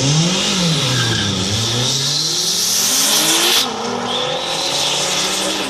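Drag-racing car engines revving up and down at the start line, then launching, the pitch climbing steadily as the cars accelerate away. A loud hiss sits over the engines and cuts off suddenly about three and a half seconds in.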